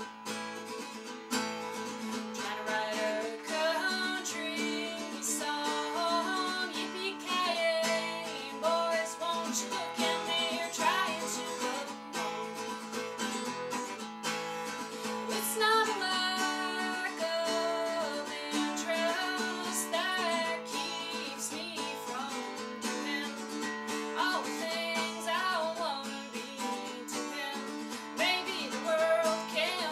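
A woman singing while playing an acoustic guitar.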